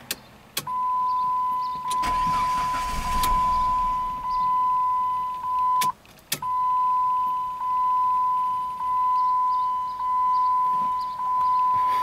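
Chrysler PT Cruiser's warning chime sounding a steady high beep that swells about once a second; it stops for a moment around six seconds, between sharp clicks, then carries on. The cause of the beeping is not known.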